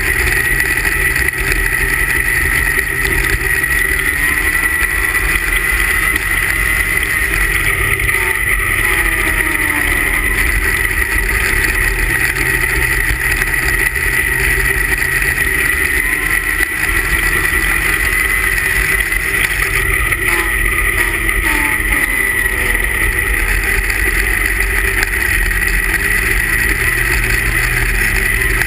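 340 cc two-stroke racing snowmobile engine running hard, heard from on board, over a steady high whine. Twice, about a third of the way in and again after two thirds, the engine note falls and climbs back as the sled eases off for a turn and accelerates out.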